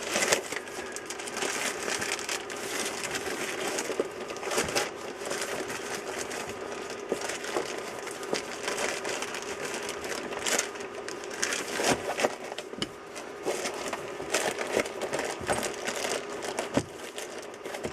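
Continual rustling and crinkling with many small knocks and clicks as tools and items are handled and pushed into a fabric tool roll, over a faint steady hum.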